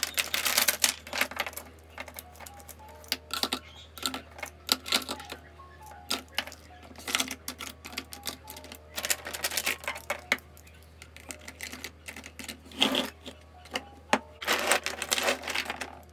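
Plastic pens and highlighters clicking and clattering as they are handled and sorted, in irregular clusters of rapid clicks, over soft background music.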